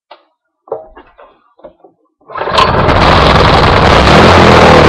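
A Lifan-built Honda-clone 6.5 hp single-cylinder engine: a few light clicks as its controls are set, then a little over two seconds in it starts up and runs loud and steady.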